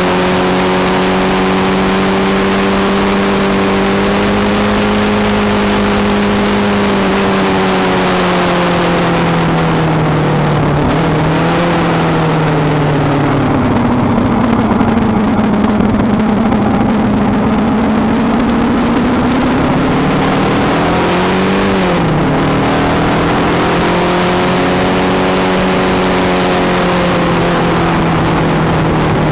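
Kawasaki ER-5's parallel-twin engine heard from on the bike while riding through bends. Its note holds steady, then drops twice as the bike slows and turns rough and uneven for several seconds. A short rise in revs comes about 22 seconds in, and the note then steadies again, with wind rush over the microphone throughout.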